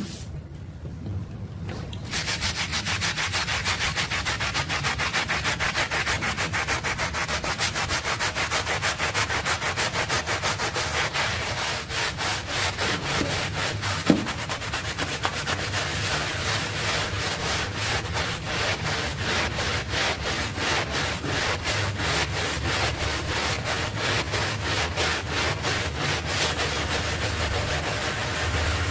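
Stiff-bristled hand scrub brush scrubbing a wet, soapy shag rug in quick, regular back-and-forth strokes, starting about two seconds in. A single short knock about halfway through.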